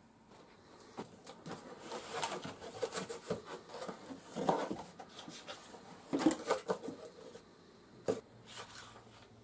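Cardboard box being opened by hand: flaps scraping and rustling, with the crackle of a paper instruction sheet as it is pulled out. The handling comes in irregular bursts, loudest near the middle, with one sharp knock about eight seconds in.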